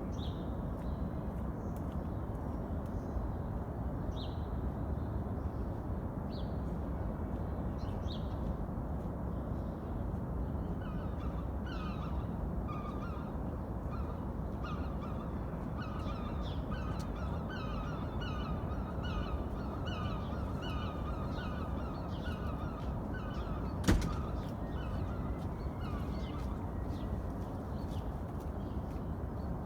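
A steady low rumble that fills the air without a break, heard outdoors and of no evident source: the uploader rules out thunder and road traffic. Over it, birds call, first singly and then in a long run of repeated calls from about ten seconds in until near the end, with one sharp click at about the two-thirds mark.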